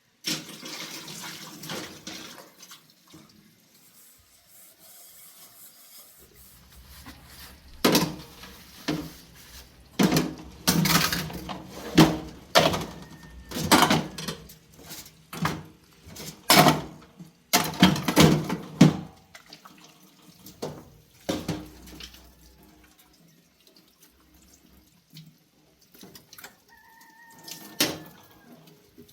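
Running water splashing, with a series of loud, irregular splashes or knocks in the middle.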